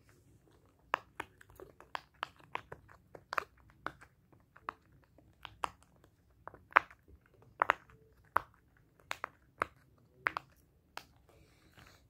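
Rainbow silicone octopus pop-it fidget toy, its bubbles pressed in one by one: a string of short sharp pops at irregular spacing, two or three a second, starting about a second in.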